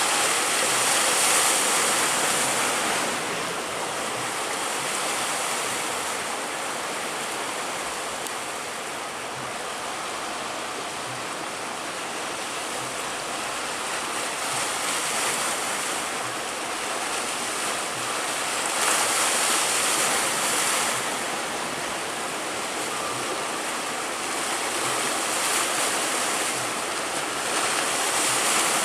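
Heavy surf breaking and washing, a steady rush of water that swells louder several times as waves come in.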